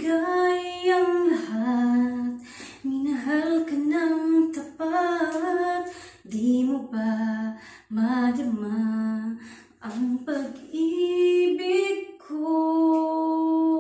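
A woman singing a slow love ballad unaccompanied, holding long notes between short breath pauses, with the echo of a small tiled bathroom.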